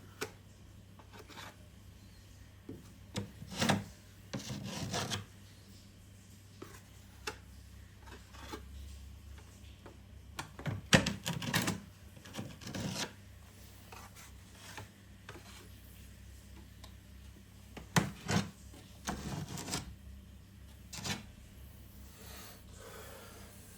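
Scraping or rasping strokes in short bursts, a few at a time, coming in three or four groups with quiet pauses between.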